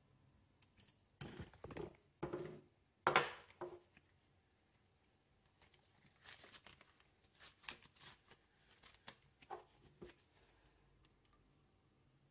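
Handling noises at a workbench: rustling and scraping as a fabric work glove is pulled on and the pistol part and screwdriver are picked back up, with a few louder scrapes about three seconds in and softer scattered clicks and rustles later.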